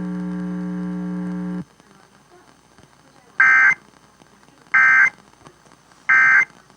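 A steady electrical mains hum on the relayed audio cuts off about a second and a half in, followed by three short, identical warbling data bursts about a second and a half apart: the Emergency Alert System End of Message (EOM) code, sent three times to close the required monthly test.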